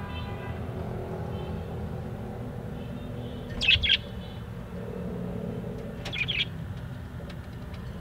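Budgerigar chirping twice, short and loud, a couple of seconds apart, over a steady low background hum.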